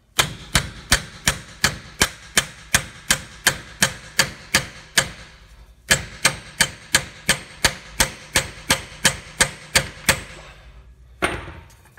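A 1-pound hammer striking an extension on a seal installer, steady metallic taps about three a second, driving a new rear axle seal into the Ford 8.8-inch differential housing. The taps break off for about a second midway, resume, and end with one last strike near the end.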